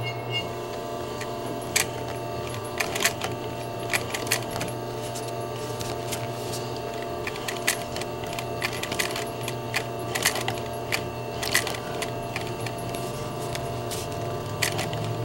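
Singer 211 industrial sewing machine stitching very slowly: its large clutch motor hums steadily while the clutch is slipped just enough to ease the needle through, with irregular clicks and knocks as each stitch goes in, closer together in the middle.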